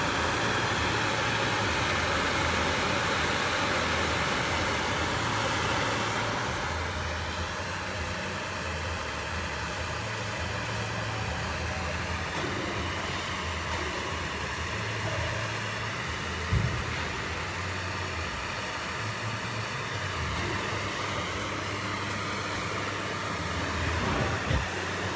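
Gas torch burning with a steady rushing hiss, its tone shifting slightly about six seconds in.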